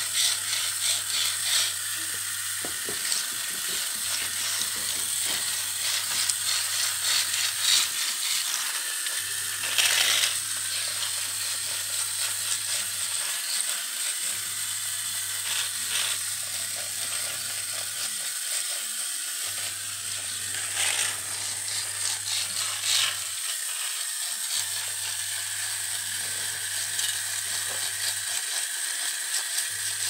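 Small pink toy washing machine running with water in its tub: a small motor whirring with a rattling, ratchet-like clatter. A low hum under it cuts out for about a second every four to five seconds.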